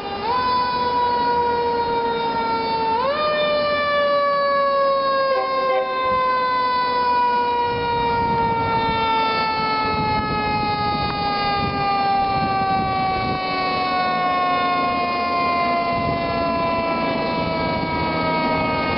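Fire engine's mechanical siren wailing: it is wound up sharply at the start and again about three seconds in, then coasts down in one long, slowly falling wail. The truck's engine rumble grows louder underneath as it approaches.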